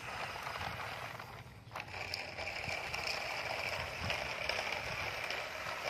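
Plastic toy dump trucks rolling over rough concrete, their wheels and loads rattling. A steady high hum joins in about two seconds in.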